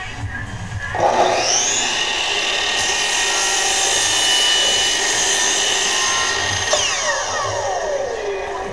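Makita miter saw motor starting with a rising whine about a second in, running steadily while it cuts through stacked 3 mm MDF, then switched off and winding down with a falling whine near the end.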